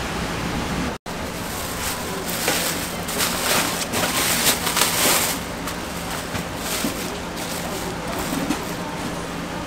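Sheet of newspaper rustling and crackling as it is lifted and folded back off a tray, over a steady kitchen hiss. The sound drops out for an instant about a second in.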